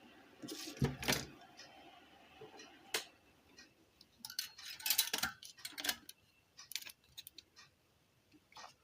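Scattered small clicks and light metallic clinks from tools and small parts being handled on a repair bench, in irregular clusters, busiest about a second in and again about four to six seconds in.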